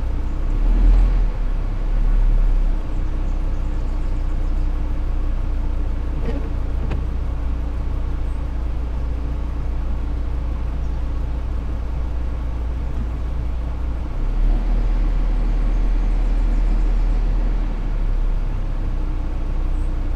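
Vehicle running, heard from inside the cab: a steady low rumble with a faint engine hum, swelling louder about a second in and again over several seconds near the end.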